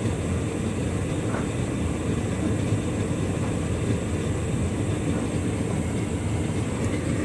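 Hotpoint Ultima S-line tumble dryer running a timed synthetics dry at its maximum temperature: a steady low rumble of the turning drum and fan, with a faint steady high whine.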